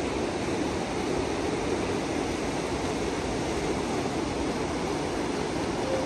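Fast mountain river rushing over rocks and rapids, a steady, even roar of white water with no breaks.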